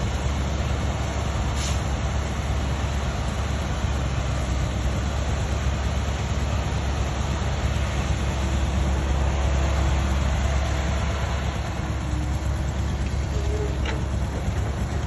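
Steady low rumble of a running vehicle, even in level throughout.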